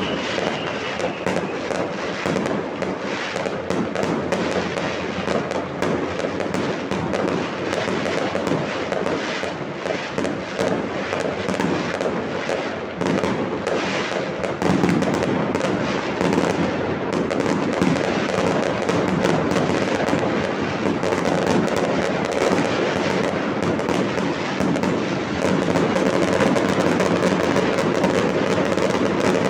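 Fireworks display: a dense, unbroken barrage of shell bursts and crackle. It grows louder about halfway through and again near the end.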